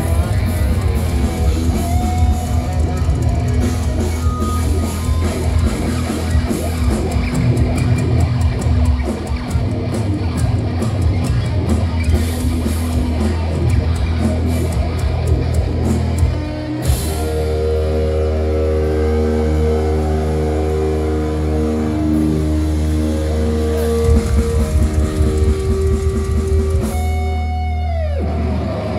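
Live thrash metal band playing loud distorted electric guitars over fast drums. About two-thirds of the way through the drumming stops and heavy guitar chords are held out, ringing. Near the end the pitch slides down before cutting off.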